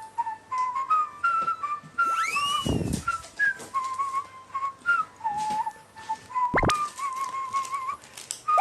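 Background music with a whistled melody of short, wavering notes. A rising swoop comes about two and a half seconds in, and a quick sharp upward zip about two-thirds of the way through.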